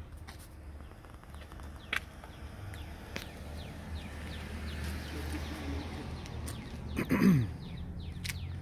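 Outdoor ambience with a steady low rumble, a few light clicks of footsteps, and faint bird chirps. About seven seconds in comes one loud sound of unknown source that falls in pitch over about half a second.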